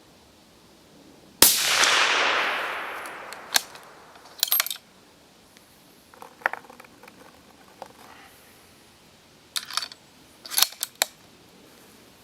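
A single shot from a suppressor-equipped 6.5x55 bolt-action rifle about a second and a half in, its report trailing off over about two seconds. It is followed by a series of short metallic clicks, the bolt being worked.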